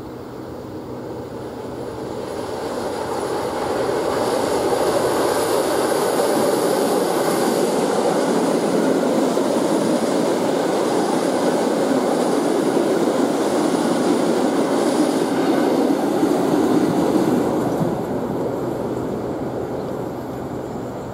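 Two coupled EN57 electric multiple units running past on the track. The running noise builds over the first few seconds, stays loud for most of the pass, and dies away in the last few seconds as the train goes by.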